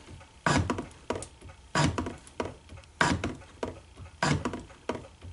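Shop-built hand shaper taking cutting strokes in a 1018 steel block, the tool bit working down a key slot. It gives a sharp scraping clack about every 1.25 seconds, four times, with a lighter knock on each return stroke between them.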